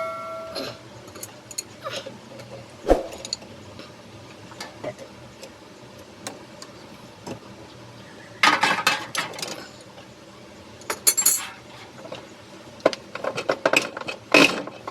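Small metal parts and hand tools clinking and tapping: scattered single clicks, with three short flurries of rapid clinks about halfway through, a little later, and near the end.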